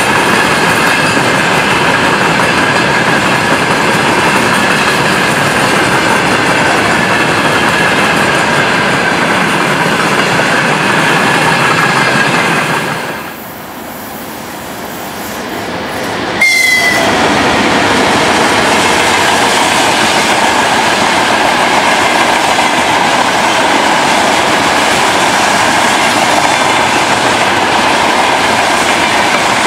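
Freight train of hopper wagons rolling past at close range: steady wheel-on-rail noise with a clickety-clack over the rail joints and a thin squeal from the wheels. Just under halfway through it fades for a few seconds, then another freight train's wagons cut in abruptly and roll on steadily.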